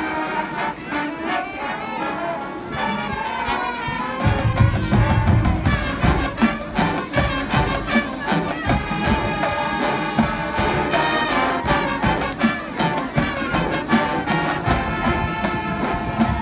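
High school marching band playing its field show: a brass section of trumpets and trombones plays loudly. About four seconds in, the low end comes in strongly and the music gets heavier and more accented.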